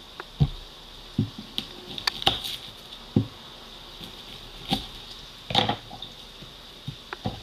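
Irregular light knocks, clicks and rustles of hands handling an onion at the kitchen counter, about seven in all, over a faint steady high whine.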